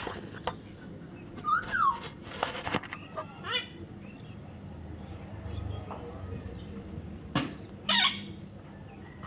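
Baby parrot giving a few scattered short calls and squawks: a quick rising-and-falling call about a second and a half in, a cluster of harsher calls around three seconds, and a louder squawk near the end.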